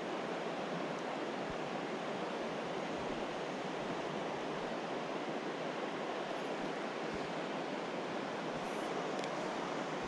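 Steady, even rush of a mountain stream's flowing water.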